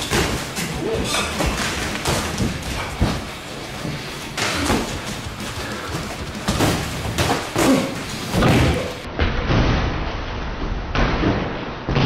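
Boxing gloves landing punches in sparring: a series of thuds and slaps, coming several in quick succession in places.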